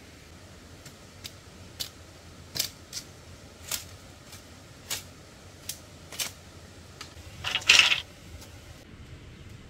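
A series of sharp, high clicks or snaps, irregular and roughly a second apart, with a longer, louder rasping burst near the end.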